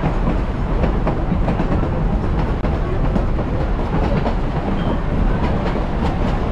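Durango & Silverton narrow-gauge passenger car rolling along the track: a steady rumble with irregular clicks and clacks of the wheels over the rails, heard from an open-sided car.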